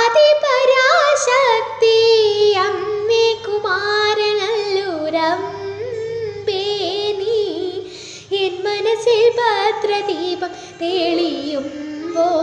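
Instrumental interlude of a Malayalam devotional song in Carnatic style: an ornamented melody that glides and bends, over a faint steady low drone.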